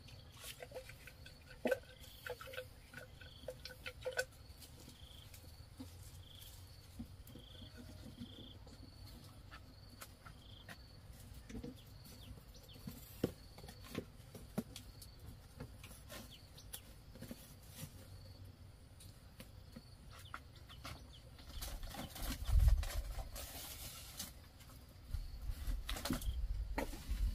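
Scattered knocks and taps of bamboo and firewood being set on the stones of an earthen hearth, with faint high chirps from a bird repeating about once a second early on. About two thirds of the way in comes a louder rushing burst with a low rumble, the loudest moment.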